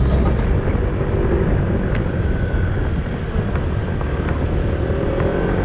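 A vehicle's engine running while moving along a road, mixed with tyre and wind noise on the microphone; the engine pitch rises slightly near the end as it picks up speed. Background music cuts off right at the start.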